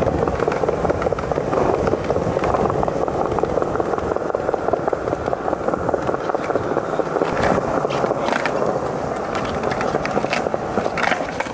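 Skateboard wheels rolling steadily over a smooth, polished stone-tiled floor, with a few sharp clicks in the second half.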